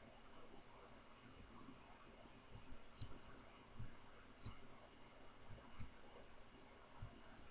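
Faint, sharp clicks, about eight scattered unevenly over several seconds, from computer input (keys, mouse or stylus) as lines are drawn on screen, over quiet room tone.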